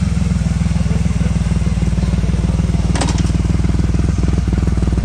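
Triumph Rocket III's big inline three-cylinder engine idling with a steady, even pulse, plus a brief sharp clack about three seconds in.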